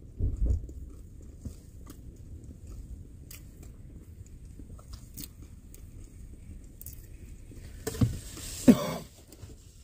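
Quiet chewing and small clicks of someone eating inside a truck cab, over a faint low hum. There is a low thump about half a second in and two louder short noises near the end.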